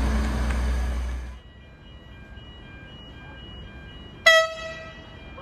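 A low rumble that cuts off suddenly a little over a second in, then a single short toot of the horn of a Hunter railcar (2700 class, set 2754/2704) about four seconds in, over faint steady high-pitched tones.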